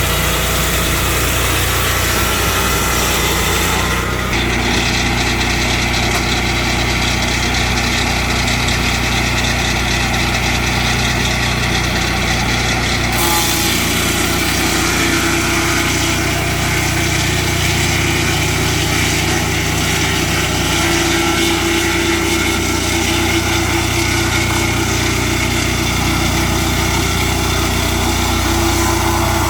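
Portable swingblade sawmill's engine running steadily, its tone shifting abruptly about four seconds in and again around thirteen seconds.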